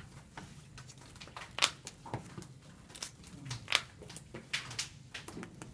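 Trading cards being handled and set down on a playmat: soft rustling and sliding with scattered sharp taps, the two loudest about one and a half and three and a half seconds in.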